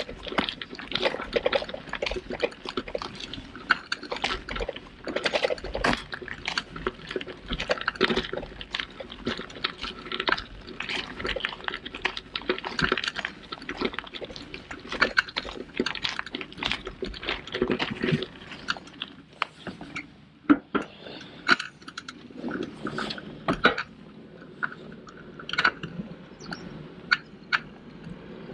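Folding bike rolling over a gravel path: tyres crunching and the bike rattling with a dense run of irregular clicks and knocks, thinning out somewhat in the second half.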